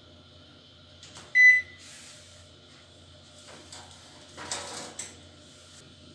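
Microwave oven control-panel beep: one short high tone about a second and a half in, just after a button click. Around four and a half seconds a brief rattle ends in a sharp click, over a faint steady low hum.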